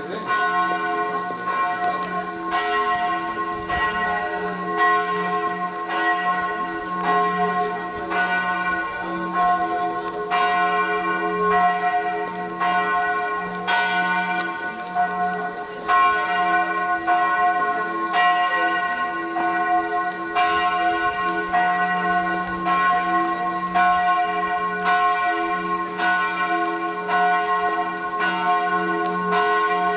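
Church bells pealing, strokes coming irregularly about once a second, each ringing on into the next.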